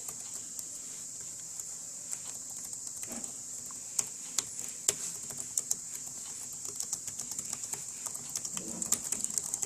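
Typing on an HP Elite V2 wireless keyboard's low-profile chiclet keys: irregular, light, quiet keystroke clicks, the space bar included, over a steady high hiss.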